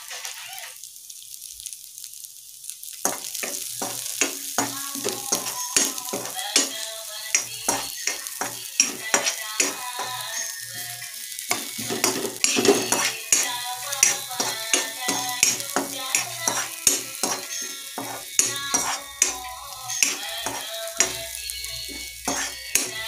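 Oil sizzling in a kadai as split chana dal and crushed garlic fry. From about three seconds in, a metal spoon stirs them, with frequent scrapes and clicks against the pan.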